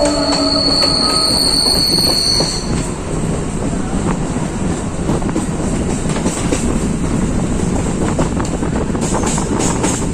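A train running on the track. Its wheels squeal with a high steady screech for the first two to three seconds, then a steady rumble, with a quick run of clicks near the end.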